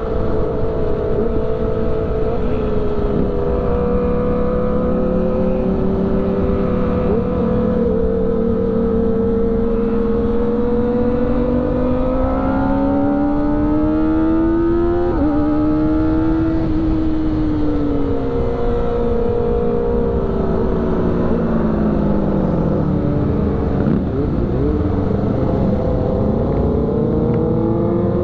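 Sport motorcycle engine heard from on board while riding, over wind rush. The pitch climbs slowly, steps down sharply at a gear change about halfway through, then falls and rises again, with a few quick dips and rises shortly before it climbs at the end.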